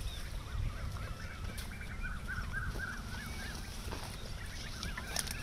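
Birds calling in quick runs of short, rising-and-falling chirps, over a steady low rumbling noise.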